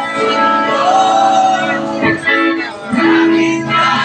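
Live band playing a song, with a vocalist singing held notes over the instruments.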